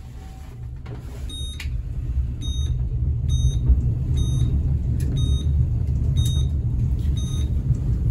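Delta Elevator car riding up: a low rumble that grows over the first few seconds as the car gathers speed, then holds steady. A short electronic beep sounds about once a second, once for each floor passed.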